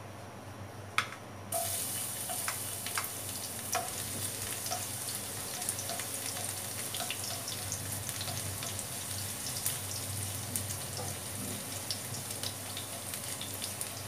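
Chopped garlic hitting hot cooking oil in a nonstick wok, starting to sizzle suddenly about a second and a half in after a single sharp click. It then fries with a steady crackle as a plastic spatula stirs it.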